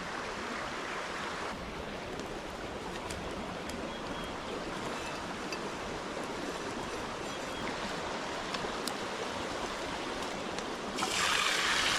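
Chicken sizzling in a pan over a campfire: a steady hiss with faint scattered crackles, which grows clearly louder and brighter about a second before the end.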